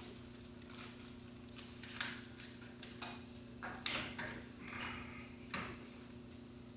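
Irregular knocks and clatters of a mountain bike's metal frame and loose parts being handled and lifted onto a hanging repair stand, the loudest about four seconds in, over a steady low hum.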